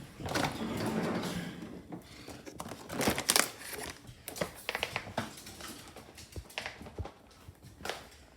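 A crinkly packet being handled, rustling and crackling for about two seconds, followed by scattered clicks and knocks, the sharpest of them about three seconds in.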